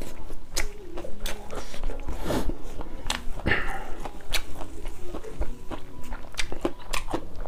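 Close-up chewing of a mouthful of food, with many short wet mouth clicks and smacks and a few soft hums.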